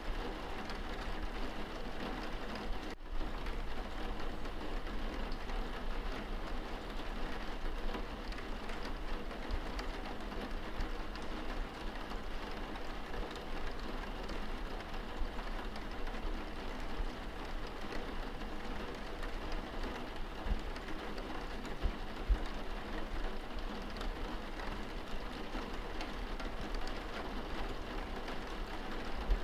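Steady rain on window glass heard from indoors, a dense even hiss of drops over a low rumble. A split-second dropout about three seconds in.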